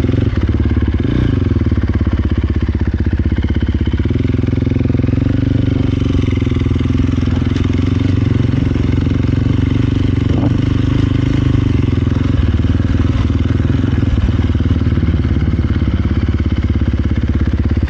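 Dirt bike engine running steadily, heard from on the bike as it is ridden at an easy pace, with a brief rise and fall in pitch near the start.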